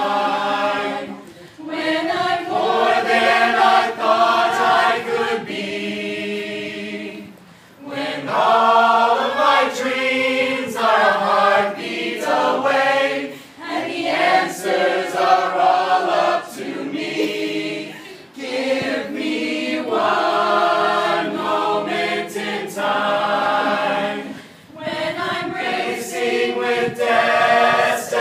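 A mixed choir of men and women singing a cappella in sustained phrases, with brief pauses for breath every five or six seconds.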